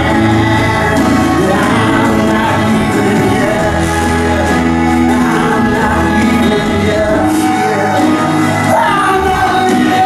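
A live band playing a slow song: strummed acoustic guitar and bass under held accompanying notes, with a voice singing over them.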